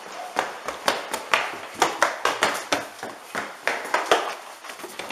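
Footsteps of a person running, about two steps a second, each a sharp tap.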